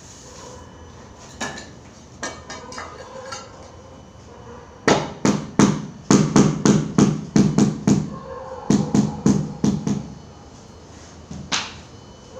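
Hammering on a work site: a few scattered knocks, then a fast run of hammer blows at about three a second, with a short break partway through.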